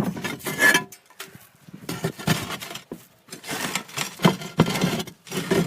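Flat roof tiles being slid back into place, scraping and knocking against each other and the roof in a series of irregular bursts.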